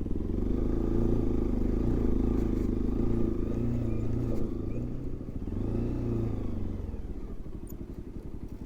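Bajaj Pulsar NS200 single-cylinder motorcycle engine running steadily while riding, its pitch dipping and rising again about five to six seconds in, then easing off near the end.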